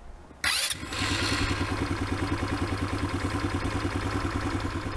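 The electric starter of a SkyBike Hyper 200L ATV cranks briefly about half a second in, and its single-cylinder four-stroke, air-cooled 200 cc engine catches at once: a cold start. The engine then settles into a steady, evenly pulsing idle.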